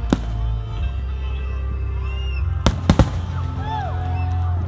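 Fireworks display: one sharp bang just after the start, then three bangs in quick succession near the middle, over a steady low rumble with music in the background.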